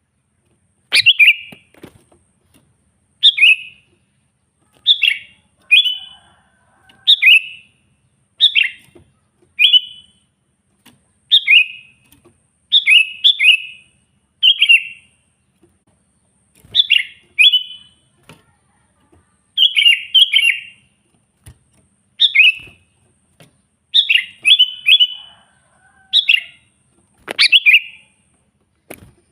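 Sooty-headed bulbul in full song, calling at rivals: short, bright phrases of two or three quick, slightly falling notes, repeated every second or two.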